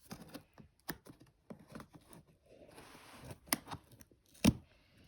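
Hands tearing and scraping at a cardboard shipping box and its packing tape: irregular clicks, scratches and a rasping tear, with one sharp knock on the box about four and a half seconds in.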